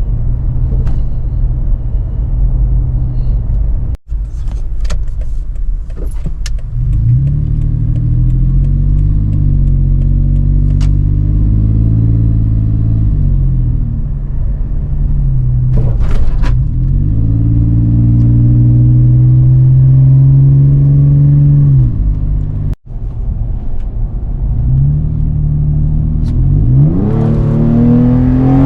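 Toyota FJ Cruiser's 4.0 L V6 through an aFe 3-inch catback dual exhaust, a deep tone accelerating and easing off with its pitch rising and falling several times. It holds steady for a few seconds in the middle and climbs sharply near the end, with two brief breaks in the sound.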